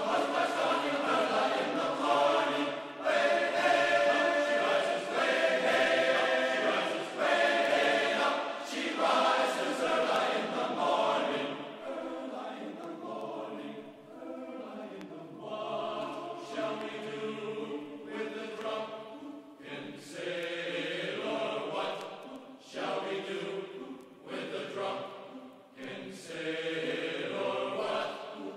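Background music of a choir of voices singing in chant-like phrases, louder for the first twelve seconds or so and quieter after.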